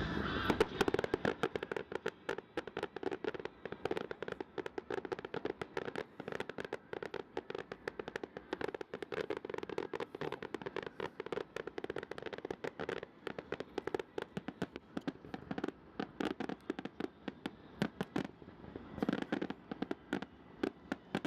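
Fireworks finale: a dense, unbroken run of rapid crackling bangs from many shells bursting at once.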